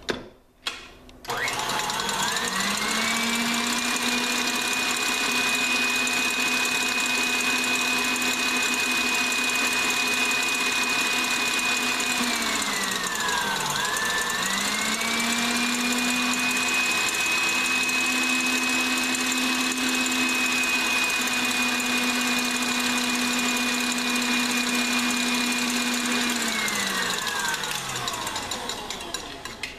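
KitchenAid Classic Plus stand mixer running on high with its wire whip, beating egg whites to stiff peaks for a meringue. The motor whine rises as it starts about a second in, drops in pitch and climbs back up about halfway through, then winds down and stops near the end.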